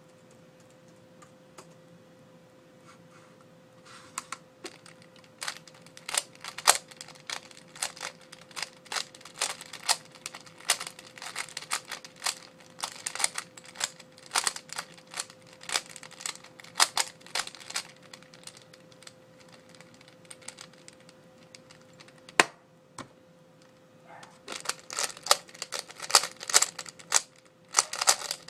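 Type C-II 3x3 speed cube being turned fast: a dense stream of sharp plastic clicks and clacks starting about four seconds in, stopping with one lone click past the middle, then starting again a couple of seconds later. A faint steady hum sits underneath.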